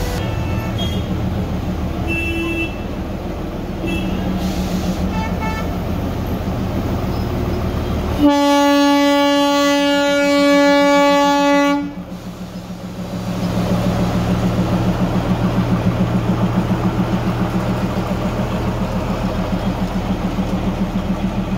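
Narrow-gauge Darjeeling Himalayan Railway diesel locomotive engine running with a steady low throb. About eight seconds in it gives one long horn blast of about three and a half seconds. After the horn the engine grows louder and pulses as the locomotive passes close by.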